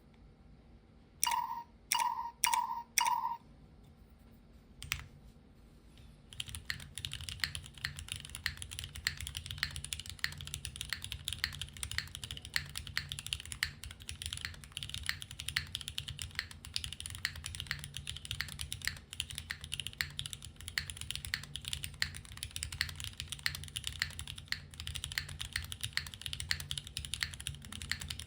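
Cherry MX HG Black linear switches under GMK Maestro keycaps on an O-ring mounted aluminium-plate keyboard, typed on quickly and continuously from about six seconds in. Before that come four short beeps and a single click.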